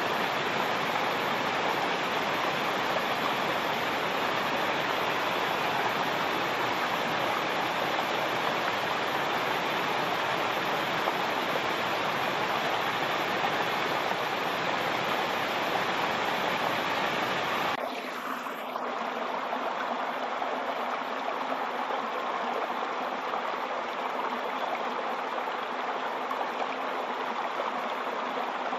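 Waterfall: a steady rush of falling water. About 18 seconds in it cuts abruptly to a different, slightly quieter water sound with less deep rumble.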